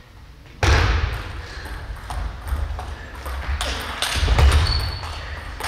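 Table tennis rally: the ball clicking sharply off bats and table again and again, over heavy thuds of the players' feet on a wooden sports-hall floor, starting suddenly about half a second in with the serve. A brief high squeak comes about two-thirds through.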